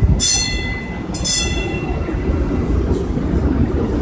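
Vintage electric streetcar rolling past with a steady low rumble. Its steel wheels give two short high-pitched squeals, one right at the start and one just over a second in.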